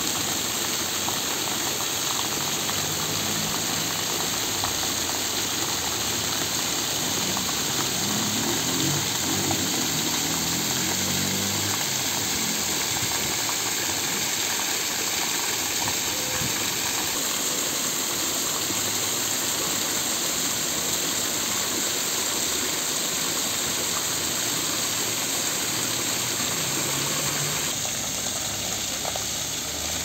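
Waterfall: water pouring down a rock face in thin streams and splashing onto the rocks below, a steady even hiss.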